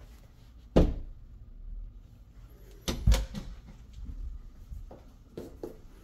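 A few sharp knocks and thumps: one loud one about a second in, a double knock around three seconds in, then lighter taps near the end.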